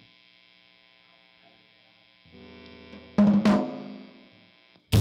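A faint steady hum, then a low held note a little over two seconds in, then two loud hits on a Ludwig drum kit that ring and fade out; the drums start up again just before the end.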